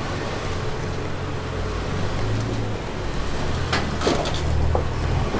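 Jeep Wrangler engine running at low revs as the four-door Jeep crawls over rock, with a few short squeaks about four seconds in.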